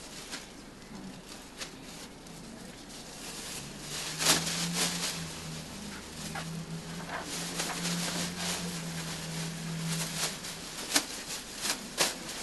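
Disposable plastic apron crinkling and rustling as it is unfolded, pulled over the head and fastened over a Tyvek coverall, in irregular sharp crackles. A steady low hum runs through the middle.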